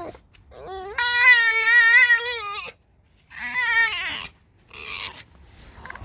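Pet red fox making its high-pitched squeaky whining calls while being scratched: one long wavering squeal lasting about two seconds, then a shorter one and a faint third.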